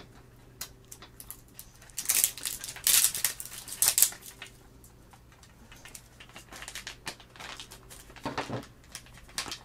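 Plastic toy packaging crinkling and rustling in irregular bursts as it is handled and opened, loudest about two to four seconds in.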